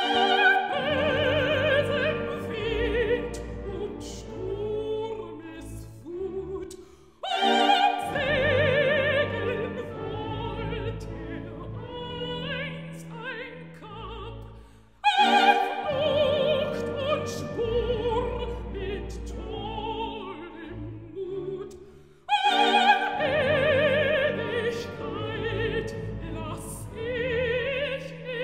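Operatic soprano singing with full orchestra in four loud phrases, each starting abruptly about every seven to eight seconds, the voice's high notes carrying a wide vibrato.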